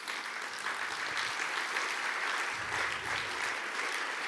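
Audience applauding, a large seated crowd clapping steadily.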